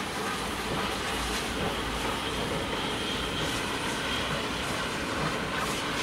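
Steam-hauled passenger train crossing an iron arch bridge: a steady rumble of the locomotive and coaches that swells in about half a second in.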